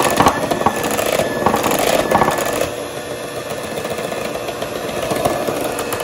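Electric hand mixer running, its beaters churning a thick mascarpone and egg-yolk cream in a glass bowl, with a steady motor whine.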